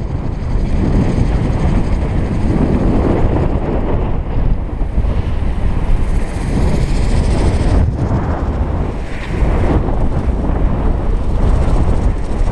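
Wind buffeting the microphone over the rush of water along a sailing yacht's hull as it moves through choppy water. The noise is steady and loud, rising and falling slightly with the gusts.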